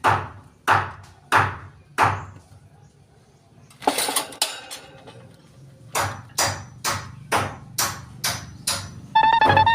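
A series of sharp knocks: four about two-thirds of a second apart, a short cluster about four seconds in, then a steady run of about two a second. Near the end a brief pitched tone rises slightly.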